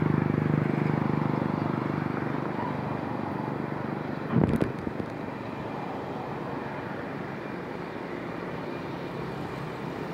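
Steady low rumble of airliner jet engines running at idle. A brief loud thump comes about four and a half seconds in.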